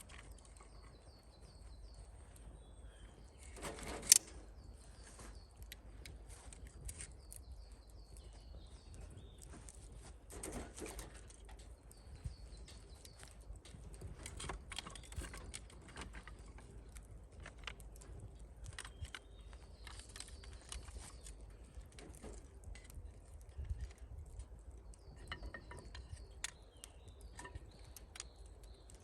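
Small birds chirping in short repeated high phrases, over scattered light clicks and a low steady rumble, with one sharp knock about four seconds in.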